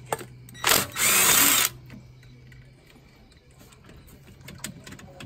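Two short bursts of loud rushing noise about a second in, the first brief and the second lasting under a second, over a low steady hum.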